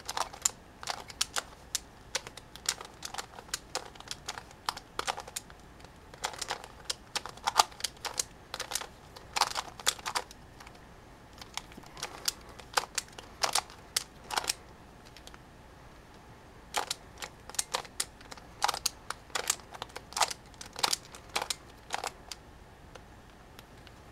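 Plastic Skewb puzzle being turned by hand: irregular runs of quick clicks and clacks as its corners rotate, with a pause of about two seconds partway through.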